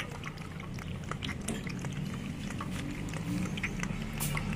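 Belgian Malinois puppy lapping milk from a stainless steel bowl of milk-soaked kibble: a quick, irregular run of wet licking clicks and slurps.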